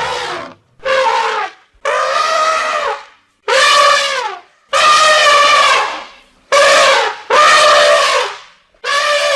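An animal calling over and over: about eight loud, pitched calls of roughly a second each, separated by short gaps, several dropping in pitch at the end.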